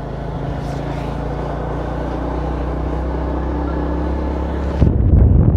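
A motor vehicle's engine running at a steady pitch. A little before the end the sound turns suddenly louder and rougher.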